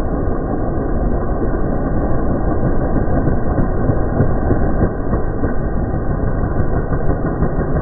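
Two racing mini bikes' engines running hard at full throttle as they drag race past on a dirt strip, heard as a loud, dense, muffled engine noise with no clear pitch.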